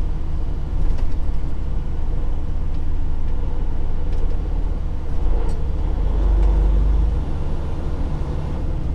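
Semi truck's diesel engine idling, a steady low rumble that swells briefly about six seconds in.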